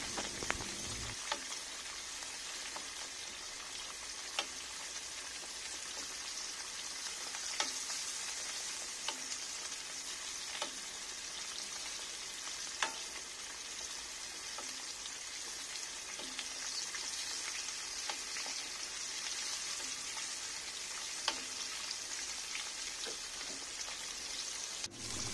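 Hot oil sizzling around a whole red tilapia deep-frying in a pan: a steady high hiss with a sharp pop now and then.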